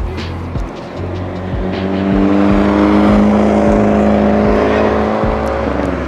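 A car driving past on the road, its engine note swelling over a few seconds and then fading. A steady beat of background music plays underneath.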